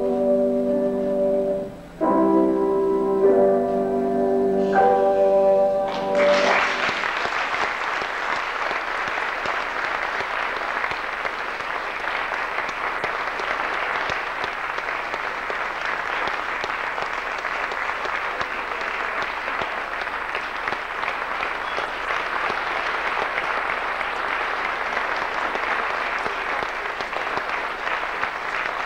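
Keyboard music closing on a few held chords, which stop about six seconds in. An audience then applauds steadily to the end.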